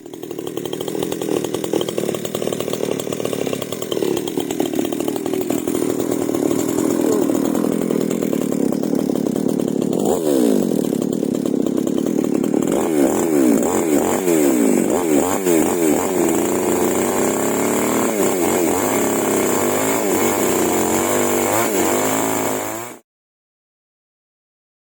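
Small two-stroke Ogawa OG6822WS chainsaw running with its single-hole modified exhaust, held fairly steady at first, then revved up and down again and again from about ten seconds in. The sound cuts off abruptly about two seconds before the end.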